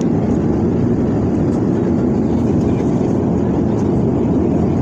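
Steady airplane cabin noise: an even, low rumbling hum of the aircraft in flight, heard from inside the cabin.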